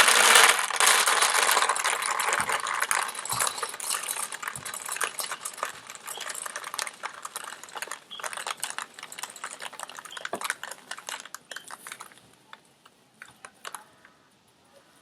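Dry lentils poured into a homemade bird feeder: a sudden dense rattle of many small grains landing. It thins out over about twelve seconds to a few scattered clicks near the end.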